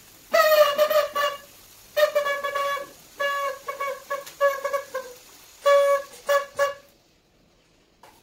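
Paper party horn blown in a series of about eight short toots at one steady, reedy pitch, ending about seven seconds in.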